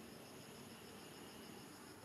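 Near silence: a faint steady hiss of outdoor ambience, with a faint, evenly pulsing high chirr of insects.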